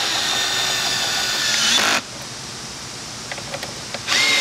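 Cordless drill-driver spinning a socket to run in the throttle body bolts on an intake manifold: a steady motor whine for about two seconds, then a second short burst near the end.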